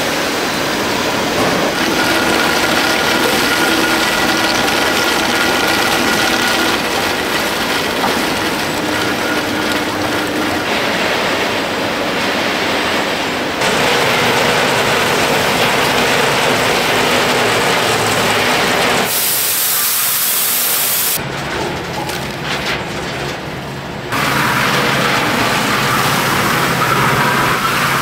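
Steady, loud factory machine noise from a snack production line: a mesh conveyor carrying fried crackers, then a rotating stainless-steel coating drum with crackers tumbling and falling into it. The noise changes abruptly several times, with a brighter hiss for a couple of seconds past the middle.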